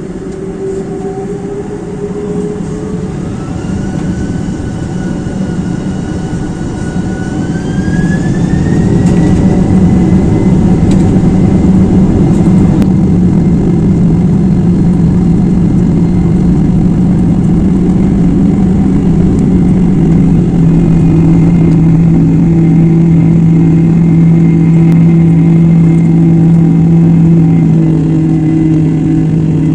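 Boeing 747-400's four turbofan engines spooling up for takeoff: a whine rising in pitch and growing louder over about the first nine seconds, then steady loud jet engine noise at takeoff power.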